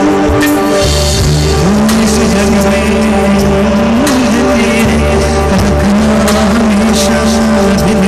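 A man singing into a handheld microphone over loud amplified backing music, holding long notes that waver and slide in pitch.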